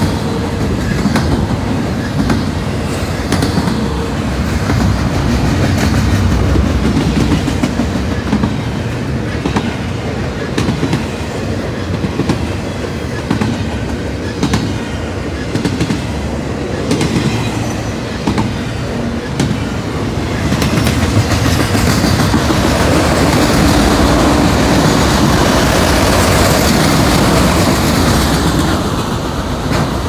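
Freight train cars rolling past at about 37 mph: a steady rumble of steel wheels on rail with quick clicking over the rail joints, growing louder and hissier about two-thirds of the way through.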